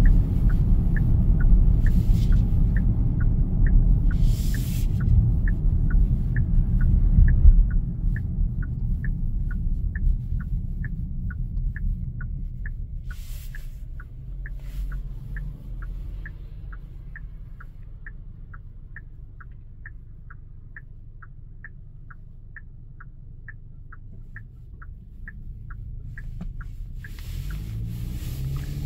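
Genesis GV80 turn-signal indicator ticking steadily, about two ticks a second, over low cabin road rumble that fades after the first several seconds. No radio is heard under the ticking: the car's audio drops out while the indicator is on, the fault this car is being replaced for.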